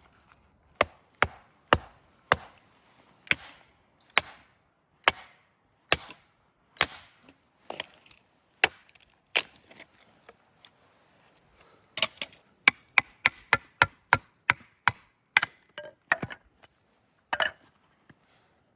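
Firewood being chopped: a series of sharp wooden knocks, about one or two a second, quickening into a faster run of strikes about twelve seconds in.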